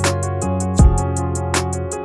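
Instrumental background music with a steady beat: deep kick-drum hits that drop in pitch, fast even hi-hat ticks, and sustained pitched notes.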